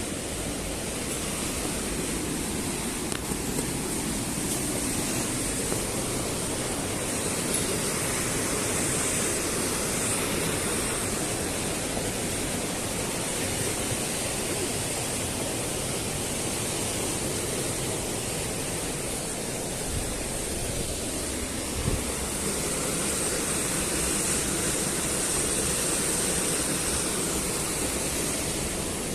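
Steady rushing roar of white water in a gorge stream and its waterfalls.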